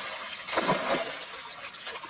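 Stream water splashing as it is scooped and thrown with a woven basket in shallow water, with one bigger splash about half a second in.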